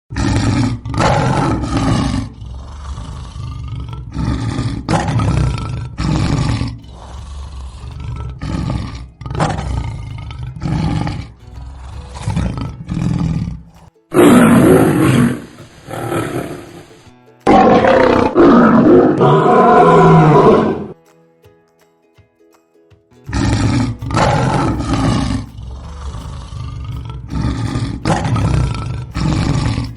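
Lions roaring: a run of short roars repeated about once a second, broken midway by two longer, louder roars, a brief near-silent gap, and then the short roars again.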